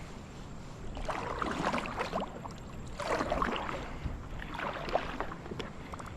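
Kayak paddle dipping and splashing in the river water, three strokes a second or two apart.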